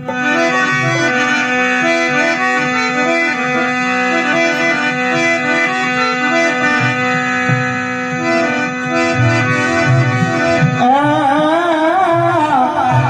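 Instrumental interlude of a devotional bhajan: a harmonium plays a stepping melody over a steady held drone, with hand-drum beats underneath. From about eleven seconds in, a wavering, sliding melodic line rises over it.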